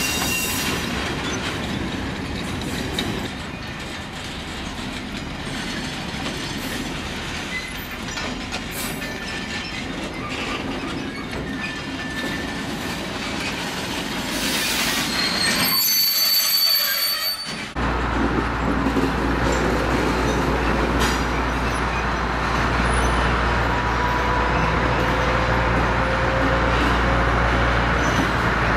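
A freight train of covered wagons rolling slowly past, its wheels squealing on the rails with some clicking over rail joints. About 17 s in this gives way to a steady low drone from a diesel shunting locomotive running while it hauls wagons, with a faint sliding squeal over it.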